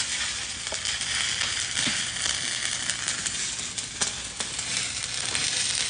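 Stick (shielded metal arc) welding with 7018 electrodes on a vertical-up pass: the arc crackles and sizzles steadily, with occasional sharper pops. It is an even arc sound that the instructor says sounds good.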